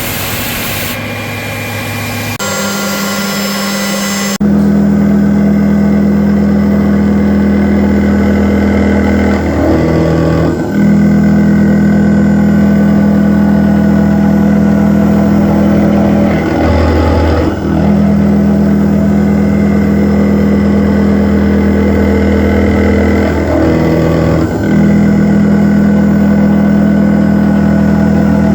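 CNC milling machine running a 2 mm ball end mill in a finishing pass on steel: a steady machine hum that settles in about four seconds in and shifts briefly about every seven seconds as the passes change direction.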